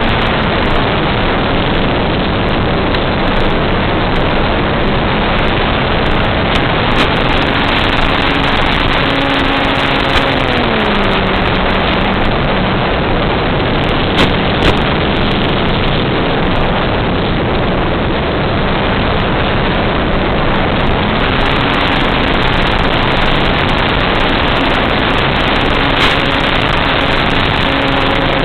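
RC model airplane's motor and propeller heard through its onboard camera microphone, drowned in loud, rushing airflow hiss. The motor's hum steps up in pitch and then drops back down twice as the throttle changes, about ten seconds in and again near the end.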